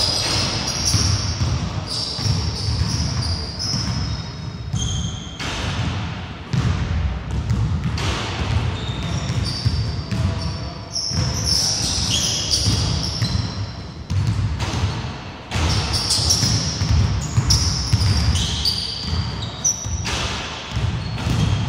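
Basketball bouncing on a wooden gym floor with repeated dribbles and thuds, mixed with short, high sneaker squeaks.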